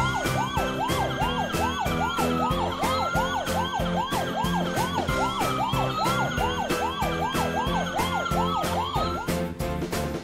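Two electronic emergency-vehicle sirens sounding together: a fast yelp rising and falling about three times a second, and a slower wail sweeping up and down about every two seconds. They play over upbeat background music with a steady beat and stop about nine seconds in, leaving the music.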